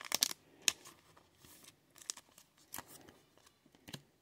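Thin clear plastic wrapping crinkling and crackling as it is handled and crumpled, a string of sharp irregular crackles, loudest in the first second.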